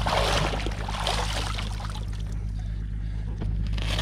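Seawater splashing and sloshing as a slender tuna is dunked and swished alongside a kayak, loudest in the first second and a half and then dying down.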